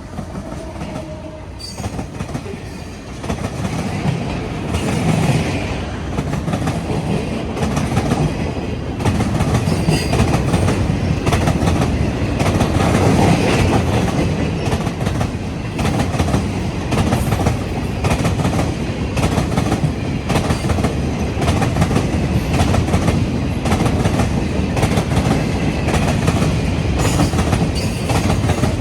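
A train passing close by: a horn blast ends about a second in, then the cars roll past with a continuous clacking of wheels over rail joints, getting louder over the first several seconds.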